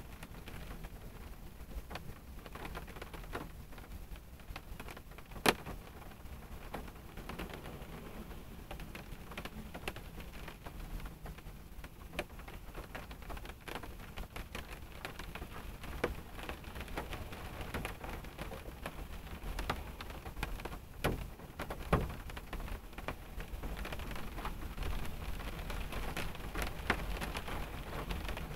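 Rain falling on a car, heard from inside the cabin: a steady patter of drops with scattered sharper, louder drop hits, the loudest about five seconds in and two more a little past twenty seconds, over a low steady rumble.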